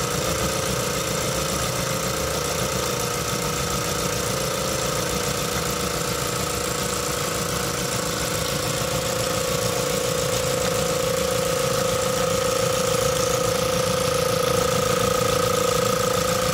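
Hose-fed model steam locomotive chassis running, its two cylinders and valve gear working fast with a rapid rattle and a steady whine. It grows a little louder in the second half.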